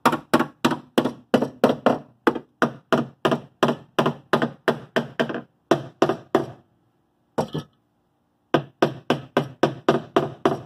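A hammer striking the car's dented inner wheel-housing sheet metal, about three blows a second, while a cable power puller holds the panel under constant tension to draw it back out. The blows stop for about two seconds past the middle, with a single blow in the gap, then resume.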